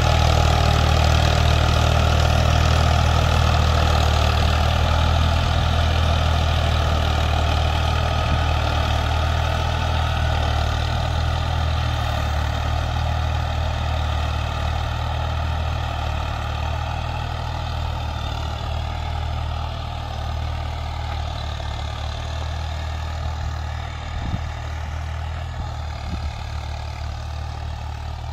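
Al-Ghazi tractor's diesel engine running steadily under load while pulling a suhaga (levelling plank) over ploughed soil. The drone fades gradually as the tractor moves away.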